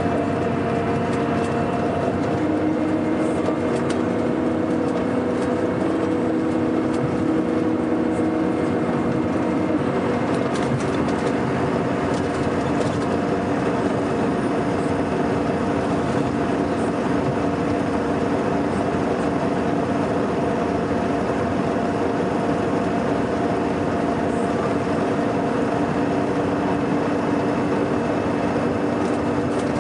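Scania K420 coach's rear-mounted six-cylinder diesel engine running steadily under way, a constant drone whose pitch shifts slightly in the first several seconds and then holds.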